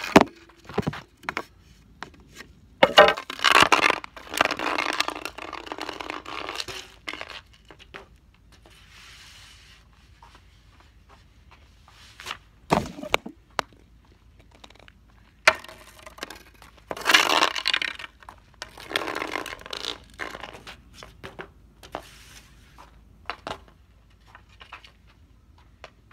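Hockey stick blade and pucks scraping over a shooting pad and asphalt, with two long scrapes lasting a few seconds each and sharp knocks of stick and pucks striking in between.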